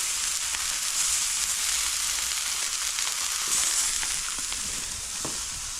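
Salt-brined mullet fillets and roe sizzling in oil on a hot Blackstone flat-top griddle: a steady frying hiss that eases slightly near the end.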